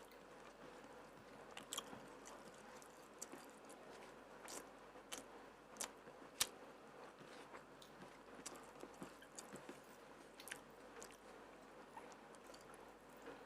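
Close-miked eating: a person chewing, with scattered short wet mouth clicks and smacks, the sharpest about six and a half seconds in.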